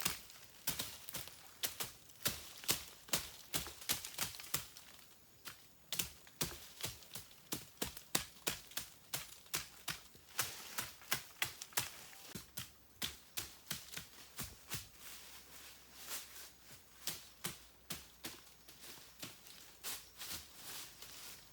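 A long run of sharp taps or knocks, roughly three to four a second, with a short pause about five seconds in.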